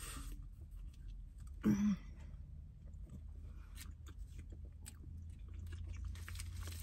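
A woman chewing pizza close to the microphone, with soft scattered mouth clicks over a low steady hum. A short voiced sound comes about two seconds in.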